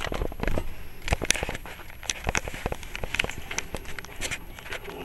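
Three-week-old pit bull puppies scuffling and squirming over each other on a blanket: irregular rustling, scratching and soft clicks.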